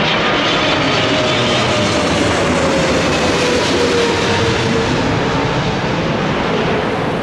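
Jet engines of a Boeing 777-300 airliner running loud and close. A single whine slides steadily down in pitch over several seconds as the aircraft goes by, and the noise begins to ease near the end.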